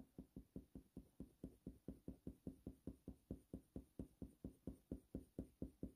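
Faint, even patter of short pencil strokes, about five a second, as a Faber-Castell Polychromos coloured pencil (warm grey 5) is flicked over hot-press watercolour paper to lay in fur.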